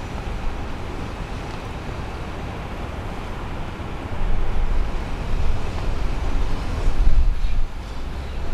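Outdoor street ambience as a steady hiss, with wind buffeting the microphone in uneven low gusts that grow louder about four seconds in.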